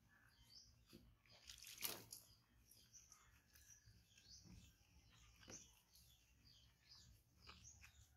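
Faint, scattered bird chirps, with a louder rustle or tick about two seconds in.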